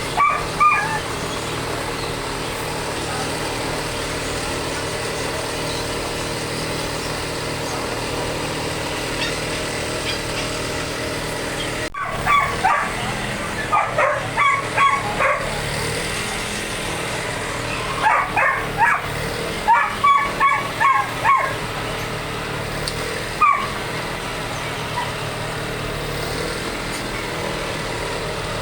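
A dog barking angrily in short runs of sharp barks: a couple at the start, then two rapid volleys of about seven and nine barks, and one last bark. Beneath them runs a steady engine-like hum.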